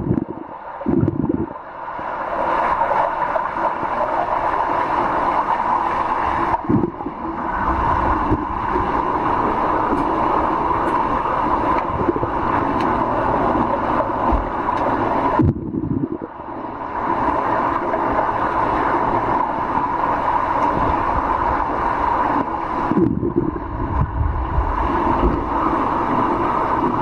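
Underwater noise of a swimming pool picked up by a submerged camera: a steady rushing hiss with muffled gurgling. It drops away briefly three times.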